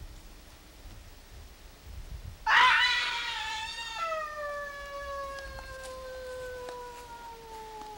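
A person's long, high falling scream: it starts suddenly and loudly about two and a half seconds in, drops in pitch a second and a half later, then slides slowly lower and fades without a break.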